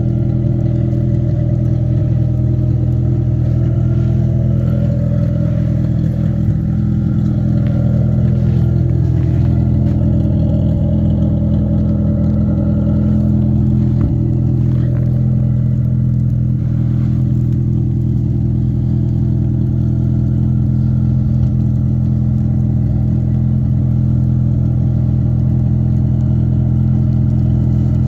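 Car engine idling steadily while warming up after a hard cold start, with no revving.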